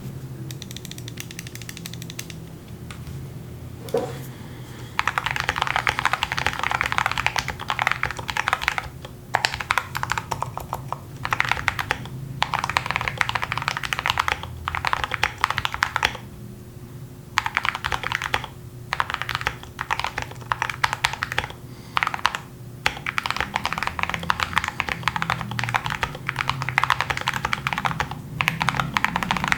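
Typing on a full-size GMMK 1 mechanical keyboard with lubed Drop Halo True tactile switches, MT3 Camillo keycaps and added sound deadening. The first few seconds are sparse and quieter; from about five seconds in come fast runs of keystrokes broken by short pauses.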